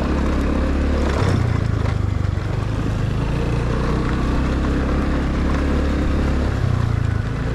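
A motor vehicle's engine running while on the move. Its pitch steps up about a second in and drops back near the end, over a steady rush of noise.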